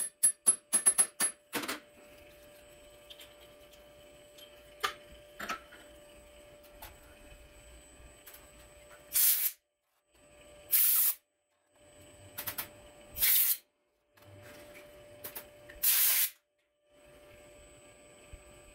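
A quick run of metal clicks and taps from a wrench working a diesel injector held in a bench fixture. This is followed by a low steady workshop hum and then four short, loud hissing blasts a second or two apart.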